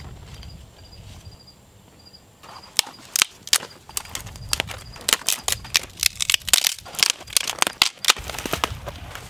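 Small dry kindling crackling and popping sharply as a freshly lit campfire catches, the pops coming thick and fast from about two and a half seconds in. Before that, insects chirp faintly and steadily.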